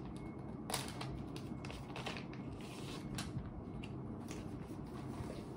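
Plastic wrapper of a disposable face mask crinkling as it is opened and the mask pulled out, in short irregular rustles over a low steady room hum.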